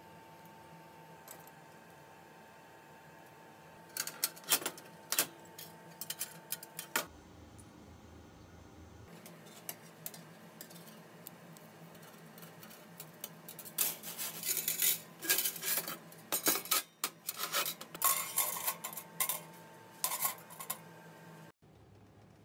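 Small stainless steel wire racks clinking and rattling against each other and a steel worktable as they are handled: a short cluster of light metallic clicks about four seconds in, then a longer run of clinks about halfway through.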